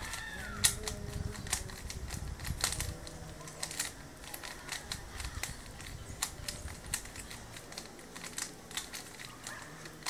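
Rubik's 3×3×3 cube being scrambled by hand: its plastic layers turn with irregular clicks and clacks.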